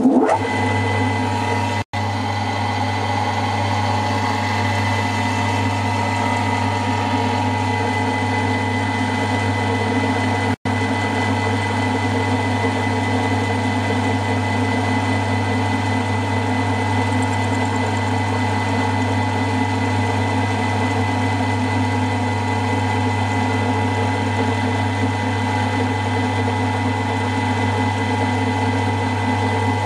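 Small milling machine running steadily, its motor and spindle giving a constant hum with a steady whine, while a 1/8-inch end mill takes a 1/4-inch-deep cut through a model engineering casting. The sound cuts out for an instant twice.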